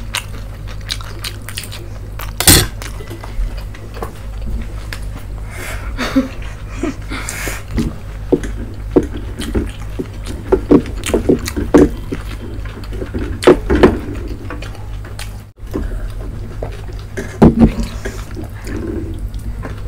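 Close-up eating sounds: chewing, smacking and slurping of spicy noodles and Manchurian, with many short clicks and clinks of a spoon and fork against steel plates.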